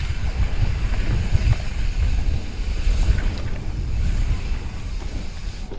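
Wind buffeting the microphone of a mountain bike speeding down a dirt singletrack, a steady heavy rumble, with tyre noise on the packed dirt and a few faint clicks and rattles.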